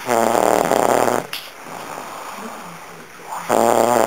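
A person snoring: two loud, drawn-out snores about three seconds apart, each lasting roughly a second, with softer breathing sounds between them.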